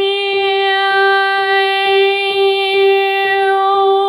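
A woman singing one long held note at a steady pitch in chest voice with forward mask resonance, the tone staying firmly attached without wavering. Faint low pulses sound about three times a second beneath it.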